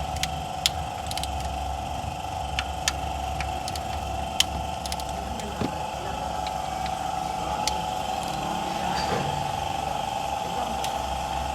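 Sharp metallic clinks and taps of hand tools on engine parts, several in quick succession in the first half and a few later, over a steady mechanical hum.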